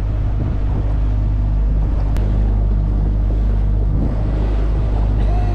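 Small fishing boat's engine running steadily under way, a low drone, with water rushing along the hull.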